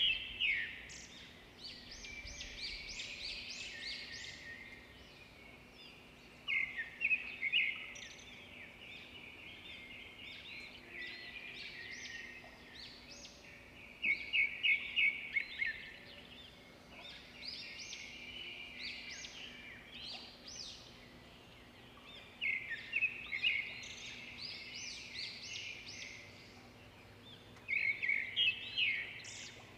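Bird song: quick high chirping notes throughout, with a louder burst of rapid repeated notes about every seven seconds.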